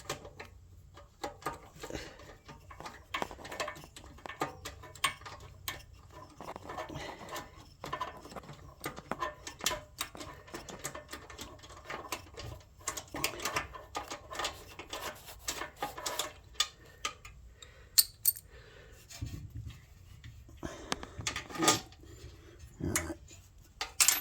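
Hand tools and small metal parts clinking, tapping and rattling in irregular clicks while a petrol pressure washer is being taken apart, with a few sharper clinks late on.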